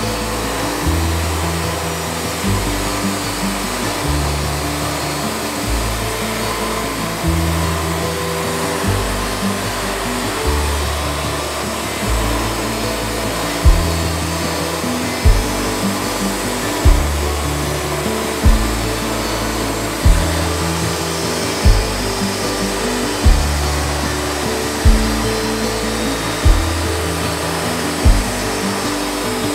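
Background music with a bass line and, from about halfway through, a sharp beat roughly every one and a half seconds, laid over the steady running of a Wood-Mizer LT40 bandsaw mill sawing a log.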